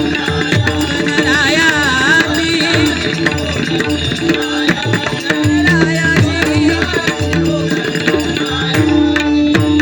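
Devotional bhajan music in a pause between sung lines: a held harmonium-style drone and melody over tabla-type hand-drum strokes and steady small-cymbal clicks keeping the beat.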